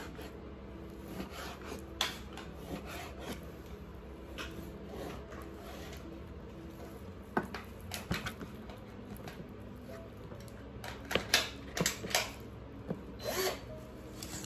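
A cordless drill being handled, not running: scattered short clicks and knocks, bunched near the end.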